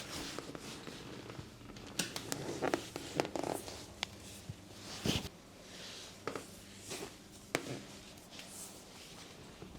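Hands-on massage handling sounds: short rustles of hands and cloth, broken by a few sharp clicks.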